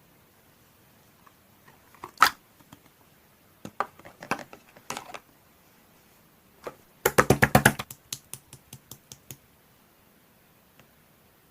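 Scattered sharp clicks like keystrokes, then a quick run of about a dozen clicks about seven seconds in, followed by slower single clicks.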